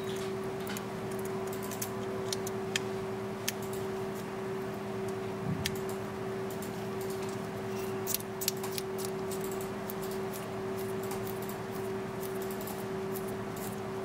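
Small, irregular metallic clicks and ticks as the head of a latch-type dental contra-angle handpiece is fitted and twisted onto its body, densest about eight seconds in. A steady low hum runs underneath.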